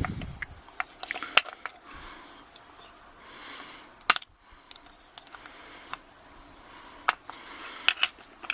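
Scattered small metallic clicks and taps as a cut-open brass padlock is worked by hand to free its core, with the sharpest clicks about a second and a half in and about four seconds in.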